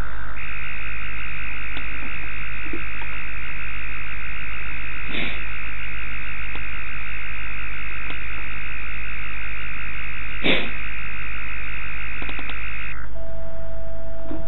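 Demodulated audio from a software-defined radio receiver: a steady buzzing hiss with two high tones over a low hum, broken by two short clicks. About 13 seconds in, the receiver is retuned and the sound changes to a single steady mid-pitched tone.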